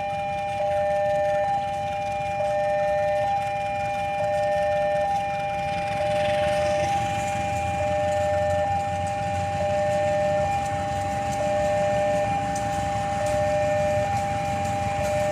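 Electronic railway level-crossing alarm sounding: a steady tone with a second, lower tone that switches on and off about once a second, over low rumble from traffic or an approaching train.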